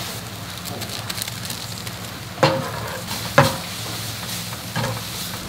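Instant noodles and sliced sausage sizzling in a non-stick frying pan as they are stir-fried with a slotted spatula, with light scraping and three knocks of the spatula against the pan about a second apart in the second half.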